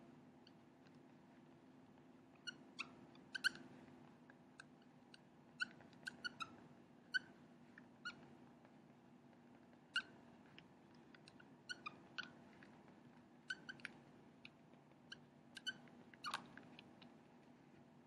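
Marker squeaking on a whiteboard while writing: many short, irregular chirps, one per stroke, over a faint steady low hum.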